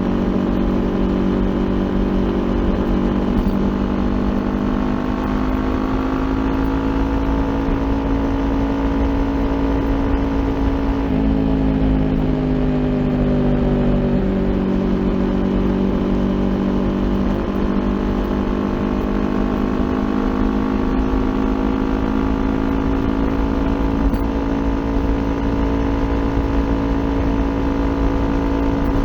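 Kawasaki Ninja 400's parallel-twin engine running through an Akrapovic aftermarket exhaust at a steady cruise, over a constant low rumble of wind and road. About eleven seconds in, the engine note dips and changes for a few seconds, then settles back to the same steady pitch.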